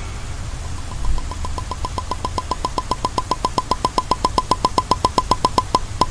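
Cartoon sound effect for a small duck-shaped toy car driving up: a quick run of short high blips, about seven a second, growing steadily louder as it nears. A soft low thump comes about a second in.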